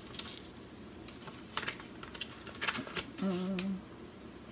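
Packing material and paper being handled, giving a few short, crisp crackles spread out over the seconds. About three seconds in there is a brief hummed "mm" from a man's voice.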